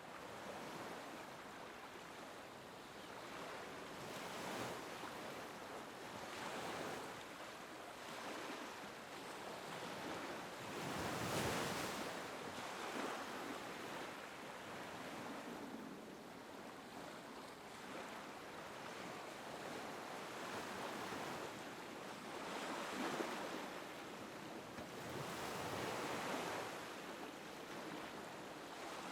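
Small waves lapping on a beach, washing in and out in repeated swells every few seconds, the largest about eleven seconds in.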